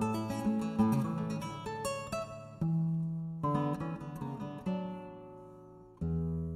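Nylon-string classical guitar played solo: a run of quick plucked notes, then a few ringing chords that fade almost to silence before a new chord about six seconds in.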